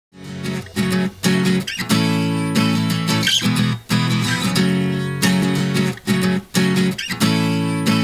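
Intro music: strummed guitar chords in a steady rhythm.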